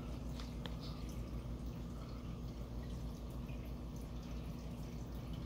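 Aquarium filter running: a steady low hum with water trickling and dripping, and a couple of faint ticks under a second in.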